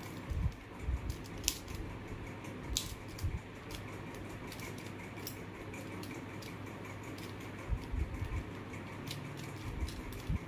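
Plastic mirror cube being twisted by hand: irregular sharp clicks and soft knocks as the layers are turned, over a steady low hum.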